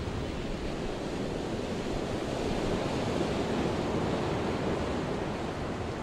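Ocean waves rolling and washing, a steady rushing sea noise mixed with wind, swelling a little in the middle.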